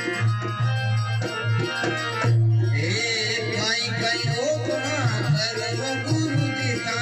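Harmonium playing a folk devotional tune with a dholak drum beating along; a man's voice starts singing about three seconds in.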